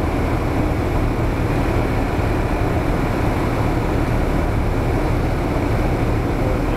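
Cessna 172R's four-cylinder Lycoming engine and propeller droning steadily, heard from inside the cabin: a low engine hum under a constant rush of noise.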